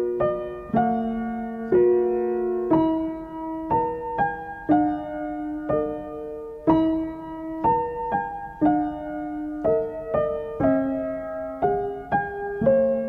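Background music: slow solo piano, single notes and chords struck about once a second and left to ring out.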